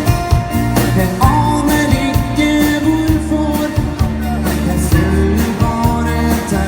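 Pop-rock song playing: a band with a steady drum beat, bass and sustained melodic notes.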